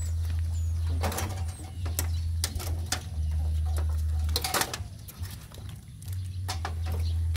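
A litter of puppies suckling at their mother, with scattered sharp smacking clicks, over a loud, steady low rumble that drops away for a moment about five seconds in.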